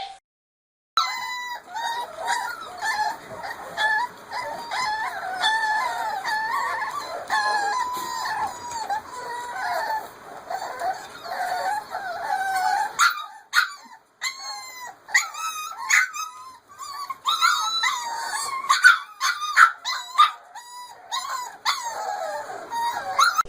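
A dog howling in long, wavering high-pitched calls. From about halfway on, the howls break into shorter separate calls with brief pauses between them.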